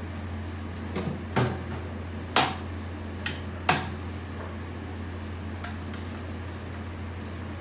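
Ramen-shop background sound: a steady low hum, with five or so sharp knocks and clinks between about one and four seconds in, and one faint click later.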